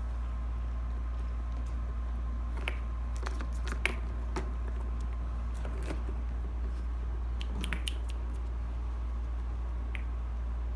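Scattered light clicks and taps as kittens paw at the ball and the plastic rim of a round cardboard-scratcher ball-track toy, a cluster about three to four seconds in and another near eight seconds, over a steady low hum.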